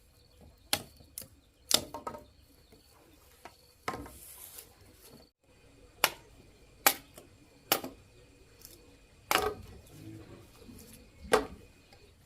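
A series of sharp, irregular knocks or chops, about eight in all, with faint insects trilling steadily underneath.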